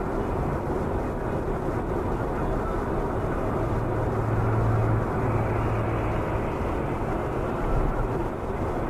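Engine and road noise of a car heard from inside its cabin while driving: a steady low rumble, with a low engine hum that grows stronger from about three to six seconds in.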